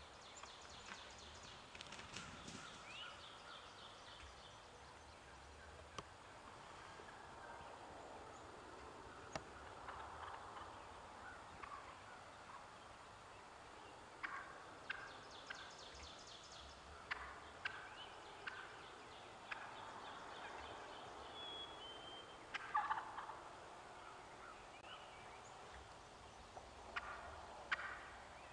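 Eastern wild turkeys calling faintly in short runs of rapid notes, several times over, the loudest run about two-thirds of the way through. A songbird whistles now and then.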